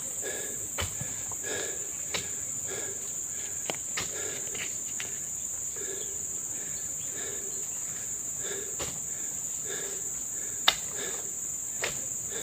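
Steady high-pitched drone of insects, with scattered short knocks as oil palm fruit bunches are shifted on the truck's load. The sharpest knock comes about ten and a half seconds in.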